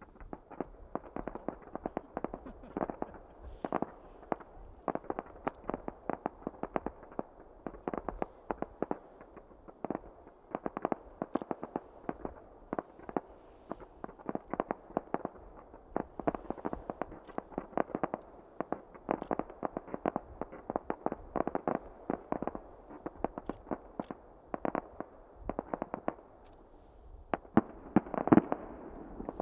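Fireworks display: a rapid, continuous run of bangs and reports, several a second, with a few louder, deeper booms near the end.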